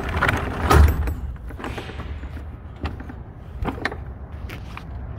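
A few sharp clunks and clicks of doors or latches being handled, the loudest about a second in, over a low steady rumble.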